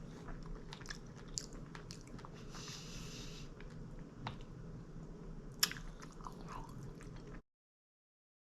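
Close-up mouth sounds of biting into and chewing a strawberry dipped in chocolate hummus, with scattered wet clicks and one sharper smack. The sound cuts off dead about seven seconds in.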